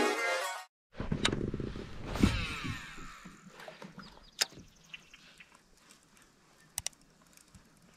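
Intro music ending, then a cast with a baitcasting rod and reel: a whoosh and a whirring spool whose pitch falls over about a second. After it come a few faint, sharp clicks.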